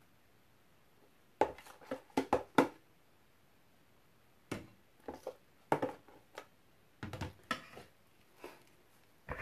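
Scattered short knocks and clacks of kitchenware being handled, coming in three clusters and once more near the end.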